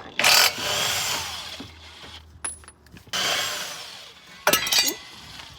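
Impact wrench with a 15/16 socket running in two bursts a few seconds apart, loosening the bolts on the back of a brake caliper. A short metallic clatter comes near the end.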